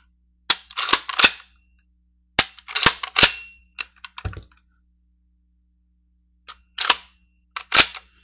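Savage Model 170 pump-action rifle being handled and its slide action worked just after reassembly: sharp metallic clacks in quick groups of two or three, about five groups with pauses between.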